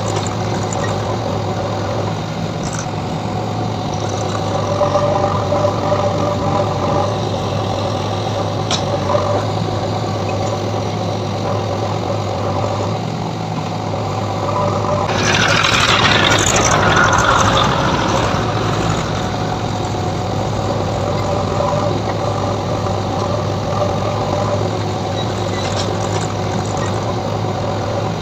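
JCB 3DX backhoe loader's diesel engine running steadily while it works its backhoe arm. About halfway through, a burst of rushing, scraping noise lasts some three seconds and is louder than the engine.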